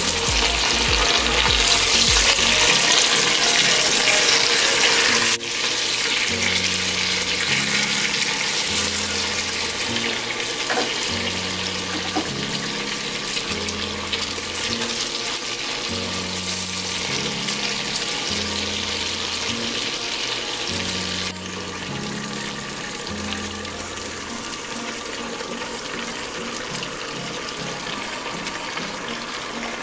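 Raw chicken pieces sizzling in hot oil with a sautéed spice paste in a stainless steel pot. The sizzle is loudest in the first five seconds, then drops suddenly to a lower, steady level. Background music with a repeating bass line comes in about six seconds in.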